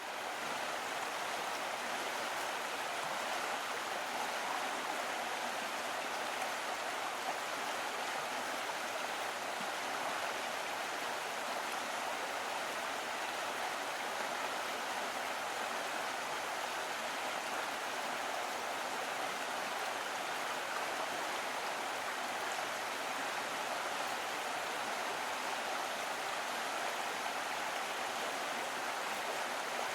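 Small stream flowing: a steady, even rush and trickle of water.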